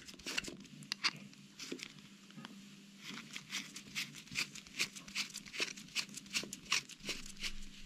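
Small flat-blade screwdriver turning out the tiny slotted taper-needle adjustment screw in the throttle slide of a British Seagull Villiers carburettor: a run of faint scraping clicks, quickening to about three a second partway through, over a faint steady hum.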